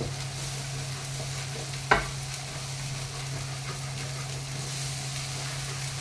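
Onion and ginger-garlic paste sizzling in hot oil in a metal pot while a wooden spoon stirs it, with one sharp knock of the spoon against the pot about two seconds in. A steady low hum runs underneath.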